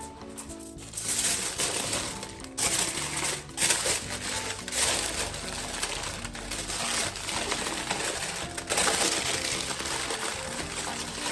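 Aluminium foil crinkling in long stretches as it is folded closed around broccoli, over background music with a steady melody.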